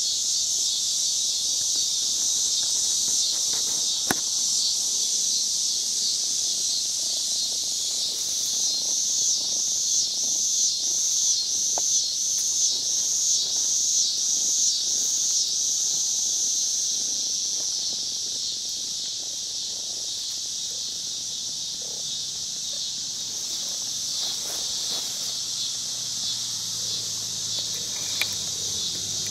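Steady high-pitched chorus of insects, which pulses in a rhythm of about two beats a second for several seconds in the middle.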